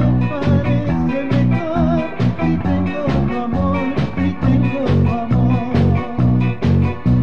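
Band music with a steady beat of bass notes and a wavering melody line above.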